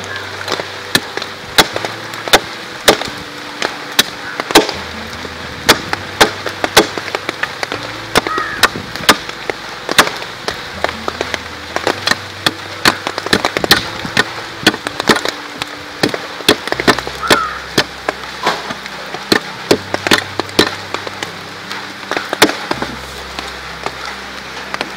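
A blade chopping and shaving a wooden stick to a sharp point: quick, irregular wooden strikes, a few a second. Background music runs underneath.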